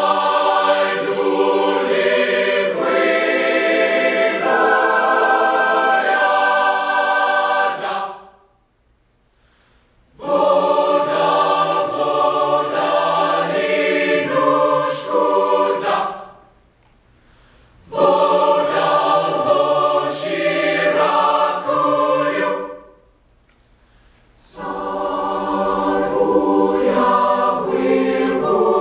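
College concert choir singing in four phrases, each broken off by a near-silent pause of one to two seconds.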